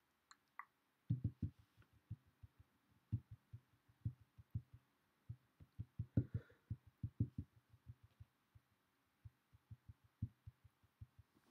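Irregular series of short, muffled low taps, a few a second, with brief pauses.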